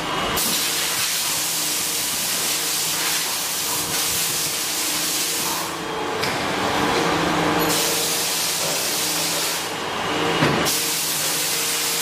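A loud, steady hiss that thins out briefly twice, over a faint steady hum, with a short knock near the end.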